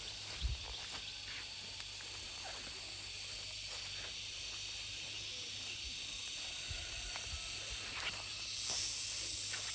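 Steady high hiss of outdoor rural ambience over a low rumble, with a few small scattered knocks.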